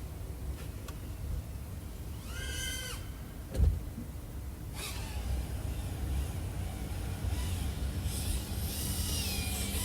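FPV quadcopter's small brushless motors and 3.5-inch props whining, the pitch rising, holding and falling with the throttle, then a rushing hiss with more gliding whines as it flies closer. A single low thump about three and a half seconds in.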